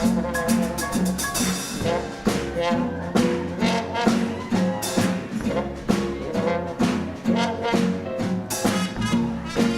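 A live jazz dance band playing an up-tempo number, with brass horns over a steady drum-kit beat.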